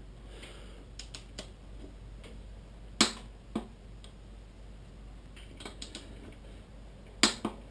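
Torque wrench tightening the rear axle nut to 65 foot-pounds: a few separate sharp clicks, the loudest about three seconds in and another strong one near the end.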